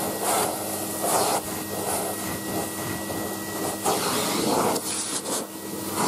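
Numatic Henry HVR200A cylinder vacuum running steadily with a constant motor whine, its nozzle worked back and forth over carpet so that the rushing suction noise swells and falls several times.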